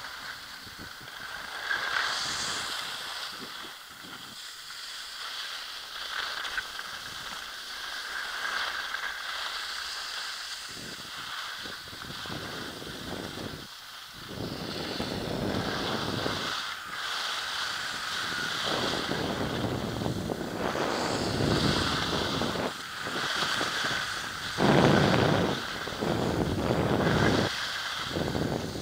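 Wind rushing over the microphone while skiing downhill, mixed with the hiss and scrape of skis on packed snow, swelling in louder bursts through the turns in the second half.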